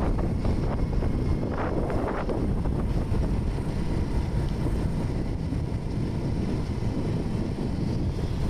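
Wind buffeting the microphone of a moving scooter, over steady engine and road noise.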